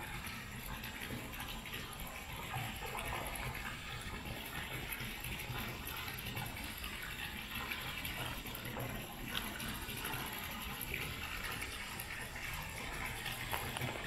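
Steady rushing noise with a few faint small ticks.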